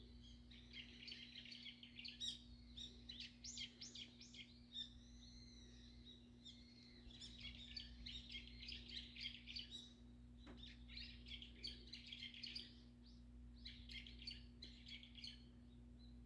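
Wild birds chirping and twittering in several clusters of rapid, high calls, with a few longer gliding notes, all faint. A steady low hum runs beneath.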